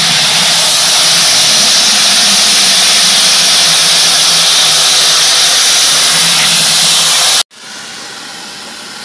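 Water spraying from a garden hose nozzle into an empty plastic bucket, a loud steady hiss. It cuts off abruptly about seven and a half seconds in, leaving a quieter steady hiss.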